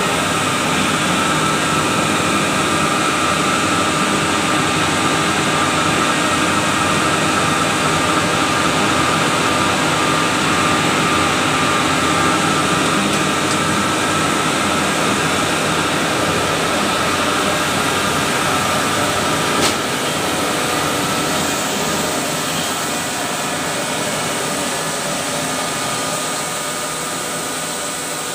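Plastic extrusion machinery running steadily: the continuous noise and hiss of an extruder line, with a steady mid-pitched whine in it. A single brief click about twenty seconds in.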